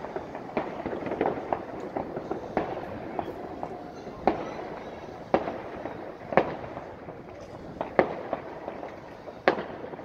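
Distant fireworks going off across the city: a steady scatter of pops and crackles, with single louder bangs about once a second in the second half.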